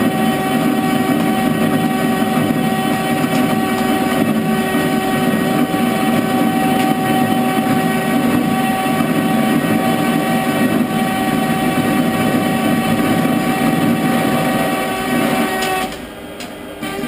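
Metal lathe taking a roughing cut on a steel billet with an ISCAR insert tool, spindle running in reverse: a loud, steady cutting noise with a held whining tone. The cutting noise stops about a second before the end, leaving the lathe's motor and gearing running more quietly.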